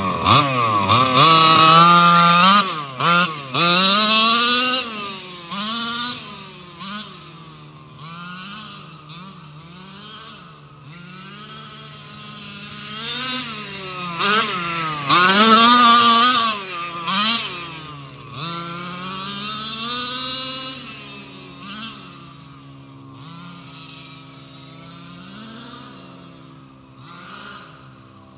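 Losi MTXL RC monster truck's two-stroke gas engine revving up and down again and again as it is driven, loudest near the start and again about halfway through, fainter toward the end as the truck runs far off.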